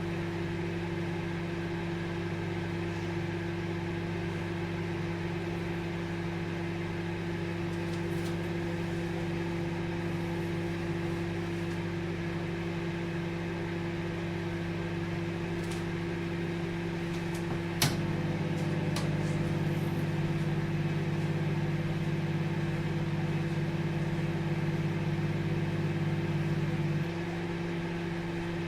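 Microwave oven running with a steady low hum and whir. About two-thirds of the way through, a sharp click is followed by a louder buzz for about nine seconds, which then drops back to the steady hum.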